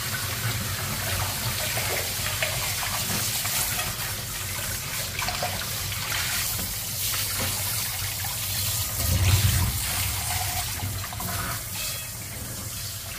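Water spraying steadily from a handheld shower head, rinsing a wet cat in a basin and splashing into the water below; briefly louder about nine seconds in.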